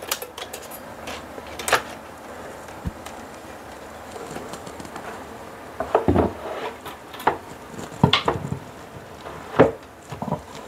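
A wire being fished down through a hole drilled in the wall: several sharp clicks and knocks with faint scraping and rubbing between them.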